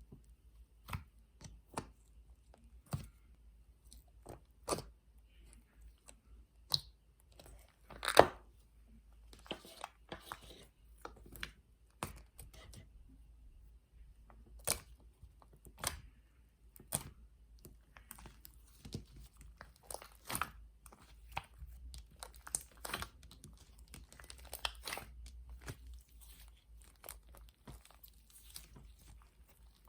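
Mango slime being squeezed and stretched by hand, giving irregular sticky clicks and pops, the loudest one about eight seconds in.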